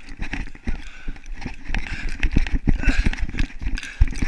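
A person running across grass pasture: quick, uneven footfall thuds with the jostling of a body-carried camera.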